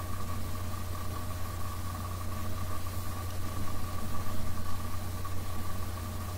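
Steady mechanical hum of a running motor: a constant low drone with a steady higher tone above it, swelling and pulsing slightly about halfway through.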